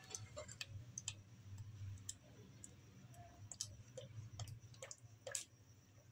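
Faint, irregular clicks and taps of a spoon against the side of a metal pot as thick rice kheer is stirred, mixing in freshly added jaggery syrup. A low steady hum sits underneath.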